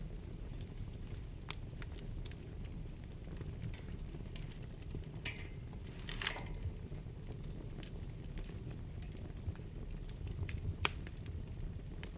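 Wood fire burning in a fireplace: a steady low rumble of flames with scattered sharp crackles and pops. A short hiss comes about six seconds in, and a sharper pop near the end.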